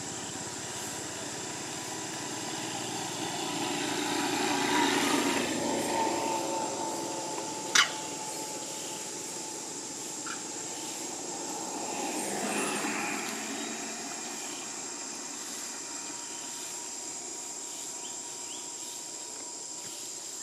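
Steady outdoor background with a constant high thin hiss; a distant engine swells and fades twice, about five and about twelve seconds in, and a single sharp click sounds about eight seconds in.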